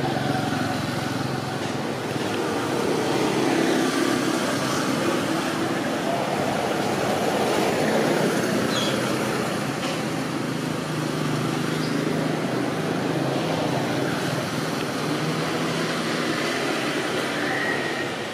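Road traffic noise from passing motor vehicles, a steady hum that swells in the middle as vehicles go by.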